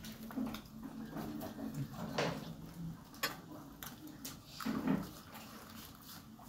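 Close-up eating sounds: chewing chicken by hand, with a few sharp mouth clicks and smacks about two, three and five seconds in, over a low murmur.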